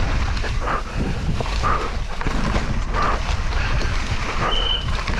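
Wind buffeting the microphone over the rumble and rattle of a downhill mountain bike running fast over wet mud and roots, with short bursts about once a second and a brief high squeal near the end.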